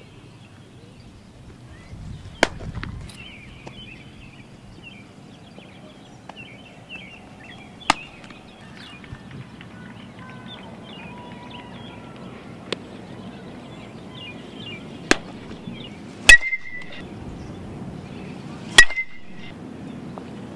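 Metal baseball bat hitting balls: two loud ringing pings about two and a half seconds apart near the end, after a few fainter sharp cracks earlier on. Birds chirp throughout.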